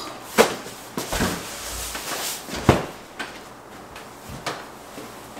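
Large cardboard flat-pack furniture boxes being carried and set down: a series of knocks and thumps, the loudest about half a second in and again near three seconds in.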